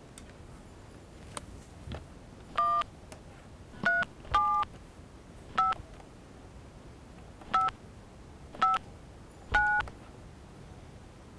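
Touch-tone keypad of a corded push-button telephone being dialled: seven short two-tone DTMF beeps at uneven intervals, one per key press, after a few faint clicks at the start.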